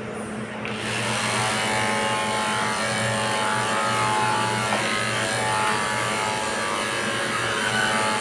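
Corded electric pet clippers running steadily as they trim a Pomeranian's coat: a constant motor hum with a buzz that gets louder about a second in.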